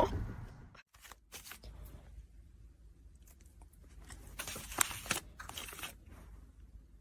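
Quiet crunching and tearing noises, irregular and crackly, with a louder cluster for about a second around the middle.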